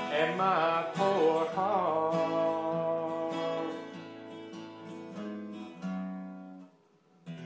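Acoustic guitar strumming country chords, with a wavering sung note over the first two seconds. The chords fade away to a brief near-silence, then one more strum comes in at the very end.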